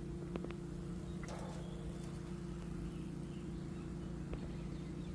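A steady low hum, with a couple of faint light clicks.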